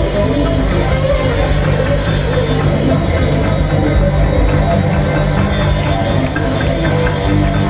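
Live rock band playing loudly and without a break: electric guitar over bass and drums.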